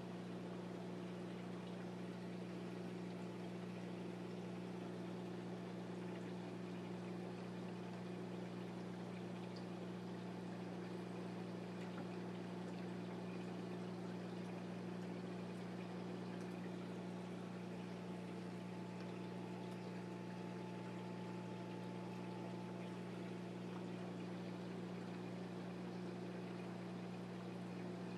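Steady hum of a reef aquarium's pumps over a constant wash of circulating water, unchanging throughout.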